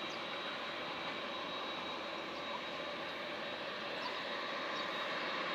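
Four Allison T56 turboprop engines of a Lockheed P-3C Orion at takeoff power during the takeoff roll, heard from a distance: a steady engine noise with a thin high whine running through it, growing slightly louder near the end.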